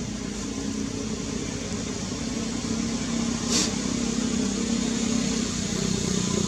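A motor vehicle engine running steadily, growing gradually louder, with a brief high hiss about three and a half seconds in.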